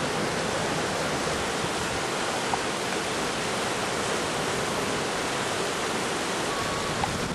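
Steady rush of white water pouring over the Curragower Falls rapids on the River Shannon.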